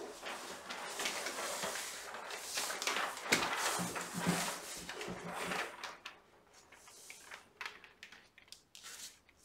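A large sheet of mulberry printmaking paper rustling as it is lifted and laid down over an inked woodblock, with a few light knocks. The rustle stops about six seconds in, leaving only a few faint ticks as the sheet is smoothed by hand.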